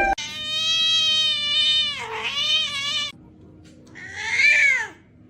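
A cat meowing: one long drawn-out meow of about three seconds that dips in pitch near its end, then a shorter meow that rises and falls.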